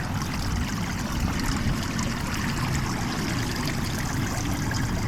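Hot spring water running steadily down a cascading stone foot-bath pool, a continuous trickling and splashing flow.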